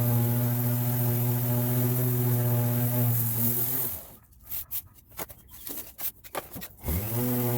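A power tool's motor running at a steady high pitch stops suddenly about four seconds in. A few scattered clicks and scrapes follow, and near the end the motor quickly spins back up to the same pitch.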